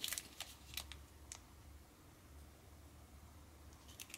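Light clicks and plastic rustles of small packaging handled on a table, a plastic sauce bottle and a plastic condiment packet. A quick cluster of clicks comes at the start, a few single clicks follow over the next second, and a couple more come near the end, over a faint low hum.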